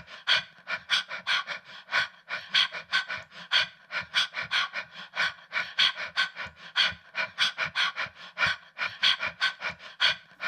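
A fast, even rhythm of short, breathy noise bursts, about four a second, forming a percussive break in the background music track.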